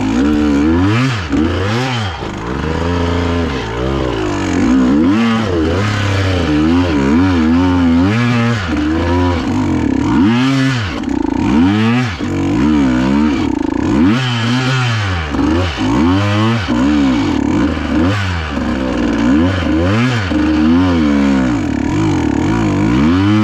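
Dirt bike engine revving up and down over and over under load as the rider feathers the clutch and throttle up a steep, technical hill climb in second gear.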